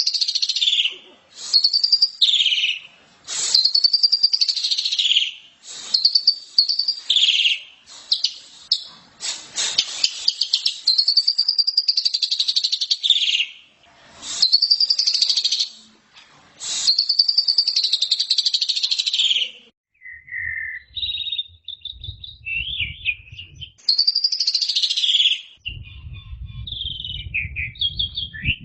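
Asian pied starling (jalak suren) singing: loud whistled phrases that arch up and fall, repeated one after another with scratchy notes between. About two-thirds in the song breaks into shorter, quieter chattering notes, and a low hum comes in underneath near the end.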